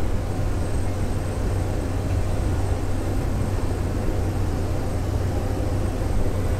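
Steady engine and propeller drone with rushing air noise inside the cabin of a small single-engine turboprop plane in flight: a constant low hum under an even wash of noise.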